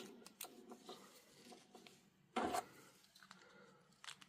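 Small plastic Beyblade parts clicking and rustling faintly as they are handled and fitted together, with one louder brief handling noise about two and a half seconds in.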